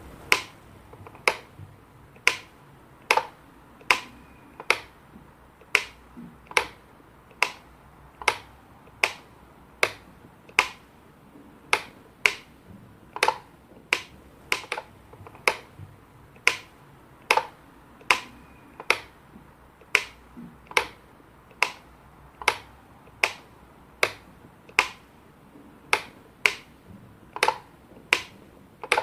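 Upper and lower teeth clicking together, one sharp click at a time, at about one click a second.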